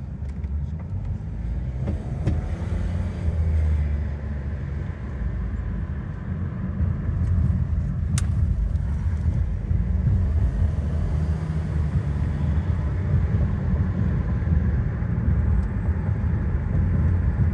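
Inside a moving car: a steady low rumble of engine and tyre noise, with one sharp click about eight seconds in.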